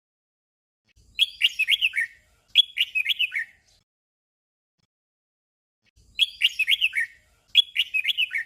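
Red-whiskered bulbul singing its short, simple 'double' song: two quick phrases of several falling notes, one right after the other, about a second in, then a pause, then the same pair of phrases again near the end.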